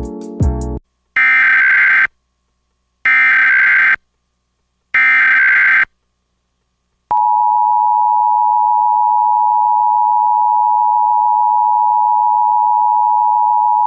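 The last notes of a short musical cue, then three Emergency Alert System SAME header data bursts, harsh digital warbles about a second each and a second apart. From about seven seconds in comes the steady two-tone EAS attention signal (853 and 960 Hz), which is the alert-tone sequence that precedes an EAS message.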